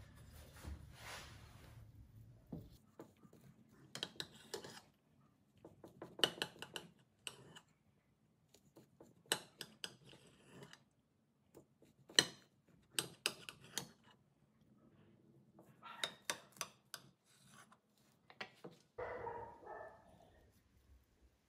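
A chef's knife sawing through a date and walnut loaf, with crisp rasping and crackling from the crunchy walnut topping and crust. It comes in about five short bouts of strokes as slice after slice is cut.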